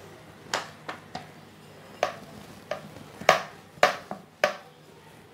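Metal rolling pin rolling out paratha dough on a stainless steel plate, knocking against the plate in about nine sharp, irregularly spaced clacks.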